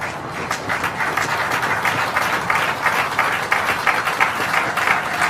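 Applause from a room of people clapping, starting about half a second in and building to a dense, steady clatter of claps.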